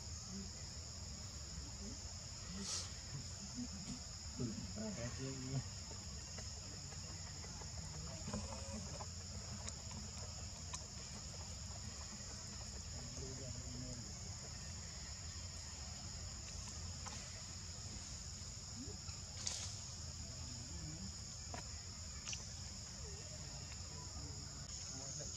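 Steady high-pitched drone of an insect chorus, with a couple of faint clicks.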